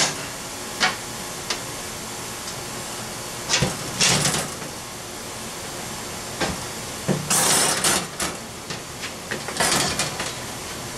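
Metal side panels of a Lifedoo flat-pack portable grill being handled and slid in their slots: a few sharp clicks, then longer spells of metal scraping and clattering about three and a half, seven and nine and a half seconds in. A steady hiss runs underneath.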